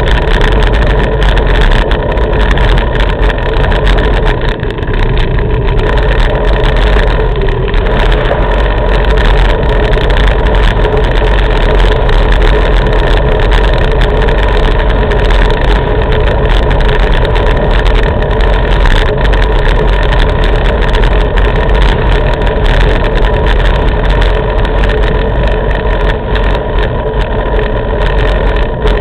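Loud, steady wind buffeting on the microphone of a camera carried on a moving touring bicycle, a deep unbroken rumble with no letup.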